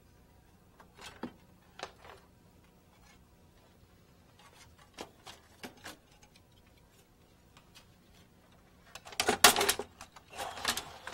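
Plastic covers and metal parts of a LaserWriter Pro laser printer being handled: a few light clicks and knocks, then two louder bursts of rattling clatter near the end as parts are lifted away.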